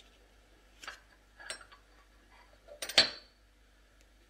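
A spoon clinking and scraping against small ceramic serving bowls: a few light clinks, the loudest about three seconds in with a brief ring.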